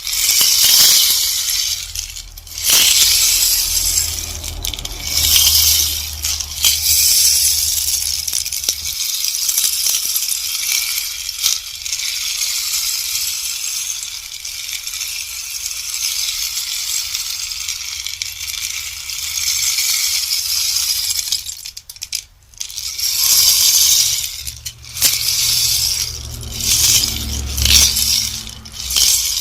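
Bamboo rainstick: a continuous cascade of tiny pattering clicks like falling rain. It breaks off briefly a few times and starts again, most clearly about 22 seconds in.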